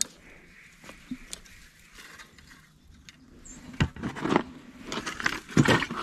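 Handling a just-landed crappie: a few sharp clicks near the start, then louder scraping and splashing bursts through the second half.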